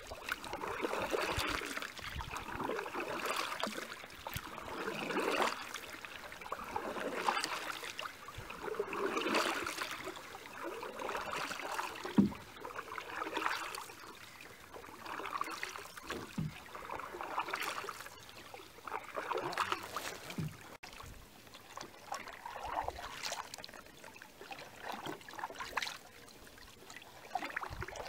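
Canoe paddle strokes in water: a swish and trickle of water about every two seconds, with an occasional light knock of the paddle against the hull.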